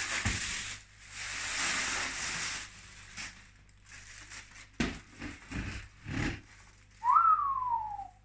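Rustling and a few knocks of things being handled, then near the end a person whistles a single note that rises and then slides down.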